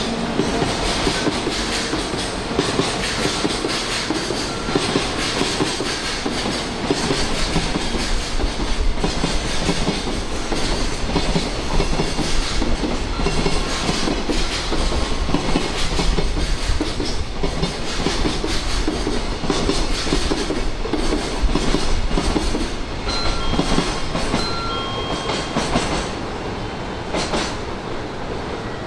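Freight train's wagons rolling past, wheels clattering over the rail joints in a steady run of clicks with a dense rushing noise; it eases slightly near the end.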